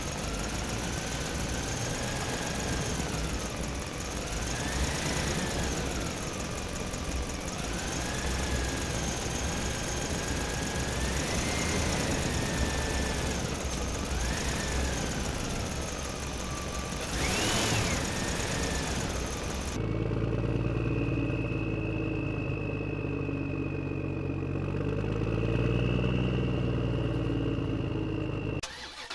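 Small electric motors of radio-controlled construction models whining, the pitch rising and falling over and over as the machines are driven. About two-thirds of the way through the sound changes suddenly to a steadier high whine over a low hum.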